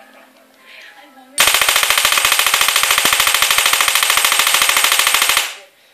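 High-voltage sparks snapping in a rapid, even series from a homemade electric mouse trap driven by a DIY pulse transformer of over 120,000 V. The loud crackling starts suddenly about a second and a half in, lasts about four seconds and then stops.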